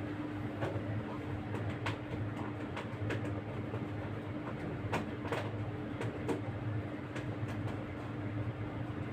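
A cat eating, chewing its food: irregular small clicks and crunches, about a dozen over several seconds, over a steady low hum.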